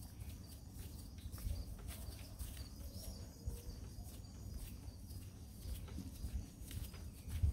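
Outdoor ambience: a steady low rumble with many light ticks, and faint bird calls.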